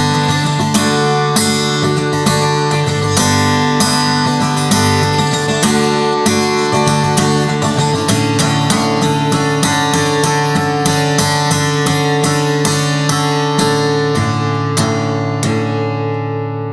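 Background music: an acoustic guitar track with steady rhythmic strumming.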